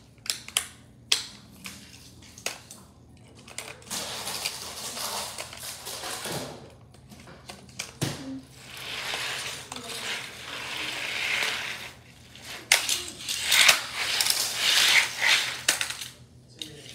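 Plastic Hot Wheels track pieces and die-cast toy cars clattering and rattling as they are handled, with sharp clicks and several long stretches of scraping, rushing noise.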